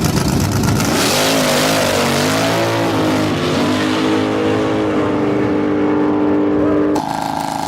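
A car's engine accelerating hard at high revs, its pitch rising and falling several times before it holds a steady high note. About seven seconds in, the sound cuts abruptly to a different car's engine.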